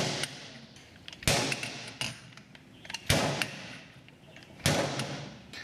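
The steel shaft of a half-inch click-type torque wrench is struck hard against a cast-iron bench vise, in an effort to bend it. There are about three heavy metal impacts roughly a second and a half apart, each ringing out briefly.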